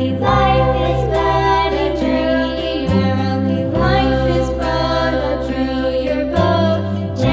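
Background music in a children's nursery-rhyme style, with a melody and some singing over held bass notes that change about every three seconds.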